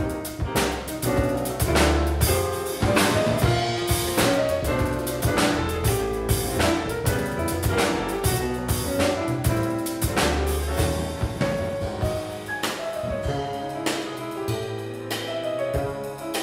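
Jazz piano trio playing: acoustic piano, upright double bass and drum kit, with busy cymbal and drum strokes over moving piano lines.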